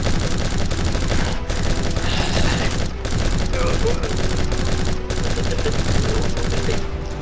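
Automatic machine-gun fire sound effect in one long, nearly unbroken burst, cutting off about seven seconds in.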